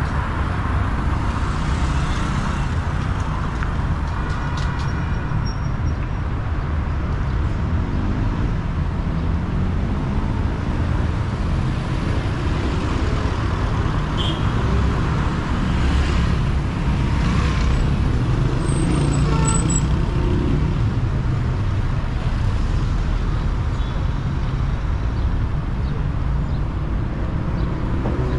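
Busy city-street traffic: a steady rumble of cars driving past, with engine notes rising and falling as vehicles go by.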